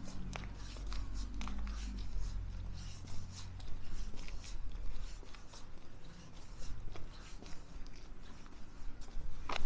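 Footsteps of a person walking on a paved street, irregular scuffing and clicking steps, with a low rumble that fades out about three and a half seconds in.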